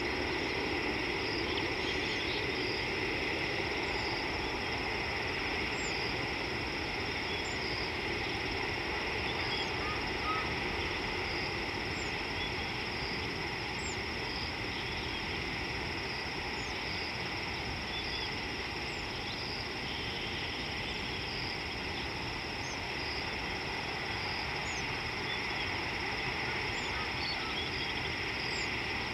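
Insects chirring in a steady high drone that pulses at regular intervals, about once a second, over a constant background rush. Faint, short high bird chirps come now and then.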